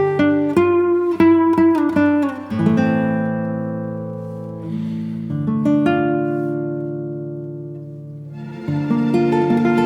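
Background music on plucked acoustic guitar: picked notes, then a few long chords left to ring and fade, then picking again near the end.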